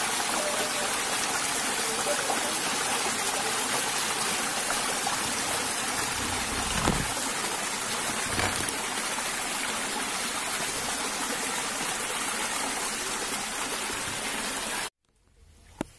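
Small stream rushing and splashing over a little drop in a narrow ditch, a steady rush of water. Two soft bumps come partway through, and the sound cuts off abruptly near the end.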